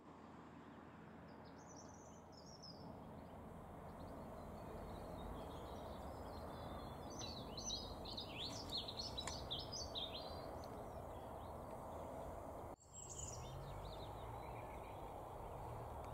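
Small birds chirping and singing faintly over a steady background hiss, the chirping busiest from about seven to ten seconds in. The sound breaks off for an instant near the thirteenth second.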